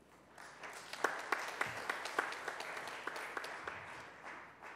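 Audience applauding, building up about half a second in, with a few loud individual claps standing out, and dying away near the end.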